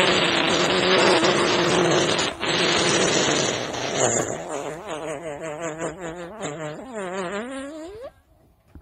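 A man's loud, raspy cry of pain that turns about four seconds in into a wavering, sobbing wail, which breaks off near the end.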